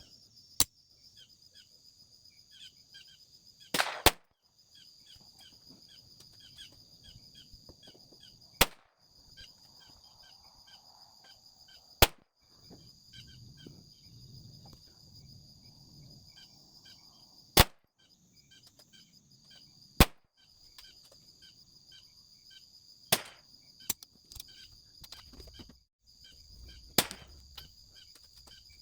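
A .22 LR S&W Victory pistol with a Tandemkross Spitfire barrel and muzzle brake is fired shot by shot with Eley Target ammunition, about eight sharp shots a few seconds apart. A steady high insect buzz with regular ticking continues between the shots.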